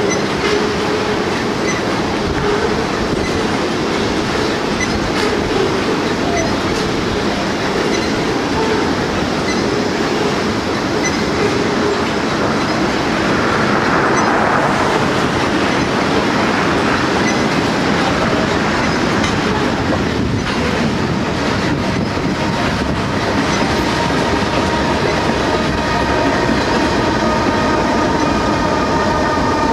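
Freight train of tank cars rolling across a bridge: a steady rumble of wheels with clickety-clack over the rail joints. Over the last few seconds a steady whine of several tones joins in as the rear ES44AC diesel-electric locomotive pushing as distributed power comes alongside.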